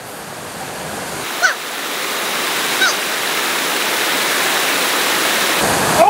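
River water rushing over rocky rapids: a steady, loud hiss. Two short high chirps cut through it, about a second and a half and nearly three seconds in.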